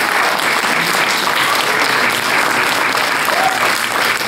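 Audience applauding, a steady dense clapping that holds at an even level.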